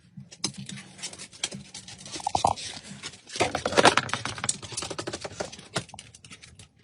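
A dog chewing, mouthing and pawing at a plush toy: irregular clicks, scratches and rustling of fabric, busiest a little past halfway, with one short squeak from the freshly replaced squeaker about two seconds in.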